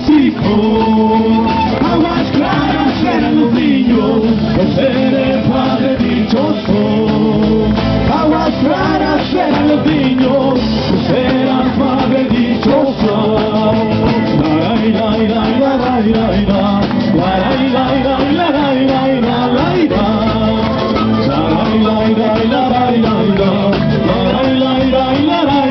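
Live Andean folk music played by a band through stage speakers: panpipes carry the melody over strummed guitars and electric bass, with no lyrics sung.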